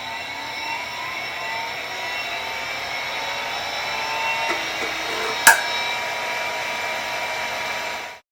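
Large 1992 hard disk drive spinning up: a whine made of several steady tones that rise slightly in pitch and grow louder, with one sharp click about five and a half seconds in. The sound cuts off abruptly near the end.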